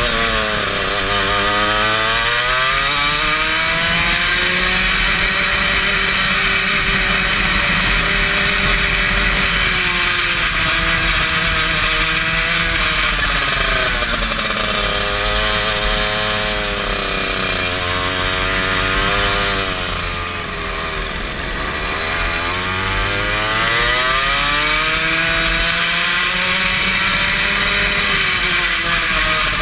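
Racing kart engine heard from on board the kart, its pitch climbing on the straights and falling back for the corners, over and over through several corners. The level dips briefly a little past the middle.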